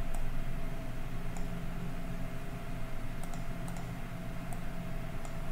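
A handful of short, sharp computer mouse clicks, spread out, over a steady low electrical hum from the recording setup.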